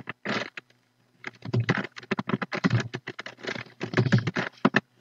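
Typing on a computer keyboard: a short burst of keystrokes, a pause of about a second, then a fast, steady run of keystrokes that stops just before the end.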